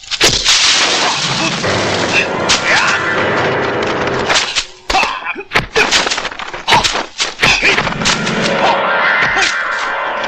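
Martial arts film fight sound effects: a rapid series of sharp punch and kick impacts, packed most thickly in the middle, over a loud, dense soundtrack.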